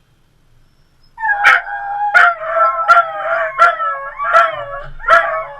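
Dog howling in a run of short, rising-and-falling calls about every 0.7 s, each with a sharp yip-like onset, starting about a second in.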